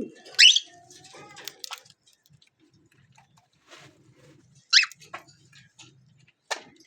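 Pet parrots giving sharp, shrill calls, three loud ones: about half a second in, near five seconds and near the end, with quieter chatter between. A pigeon's coo trails off at the very start.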